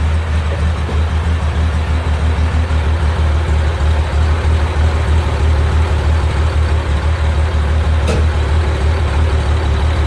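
1969 Porsche 911S air-cooled flat-six idling steadily with an even, pulsing note, running after being freshly installed.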